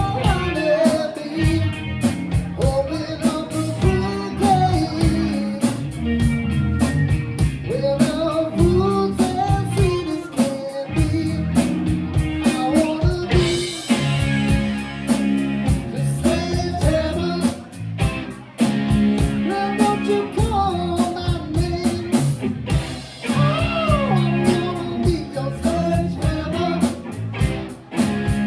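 A band playing a rock song, with a lead vocal singing over guitar, bass and drums.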